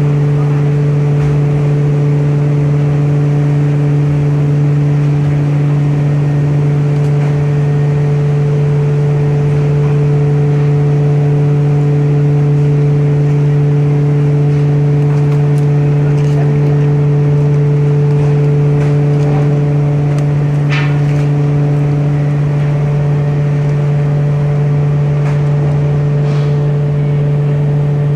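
Veneer dryer machinery running with a loud, steady low hum and steady overtones. One of the overtones drops out about three-quarters of the way through, and a brief high squeak and a few faint ticks come just before.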